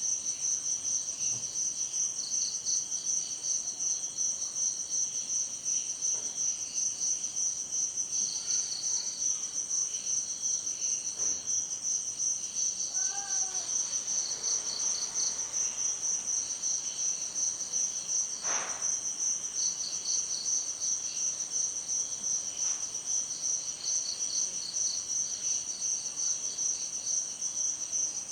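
Crickets chirping in a steady, fast-pulsing high chorus, with a second, lower insect trill coming and going in runs of a few seconds.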